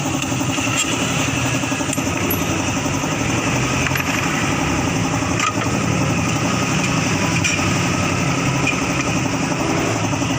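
Small motorcycle engine idling steadily, with a few faint clicks.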